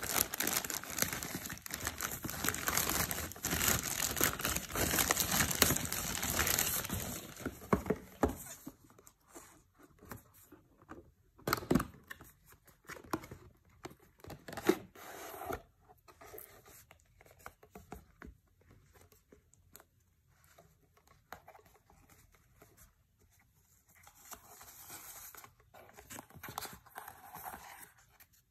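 A white courier mailer being torn open and crinkled, with dense rustling for the first several seconds. Then mostly quiet handling of the eyewear's cardboard box, with scattered light knocks and rustles. Near the end there is a second stretch of paper crinkling.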